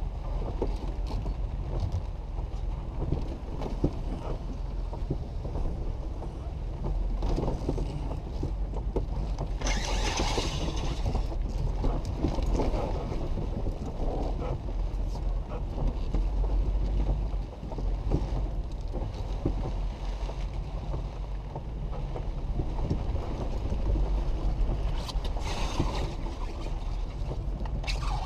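Jeep Wrangler JK driving slowly over a wet dirt trail, heard from inside the cab: a steady low rumble of engine and tyres under wind and rain noise. A louder hiss swells up about ten seconds in and again near the end.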